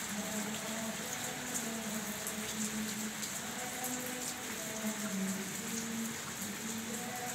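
Steady hiss like rain falling, with scattered faint ticks. Faint steady low tones shift in pitch every second or so underneath.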